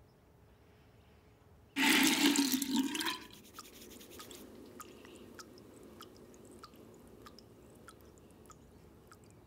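Water splashing loudly into a bathroom basin for about a second, then drips plinking into it at an even pace, a little under twice a second, over a faint steady hiss.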